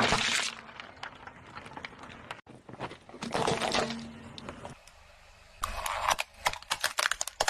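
A car tyre crushing small plastic objects. There is a loud squashing burst as it rolls onto plastic yogurt cups at the start, another crunch about three and a half seconds in, then a rapid run of sharp plastic cracks and crackles near the end.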